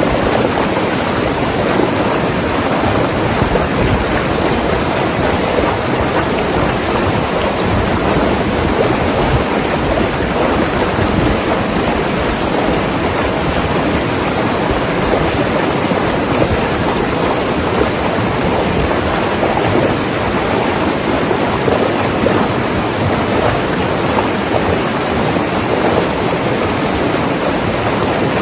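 Mountain river rushing over rocks: a steady, loud wash of flowing water.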